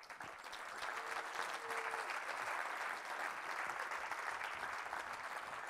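Audience applauding, building up over the first half second and then holding steady.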